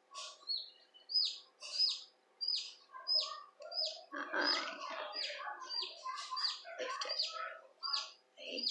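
Newly pipped leghorn chick peeping from inside its partly opened egg: a steady run of short, high, downward-sliding peeps, about two or three a second. From about four seconds in, lower rustling and scraping of the shell being handled sits under the peeps.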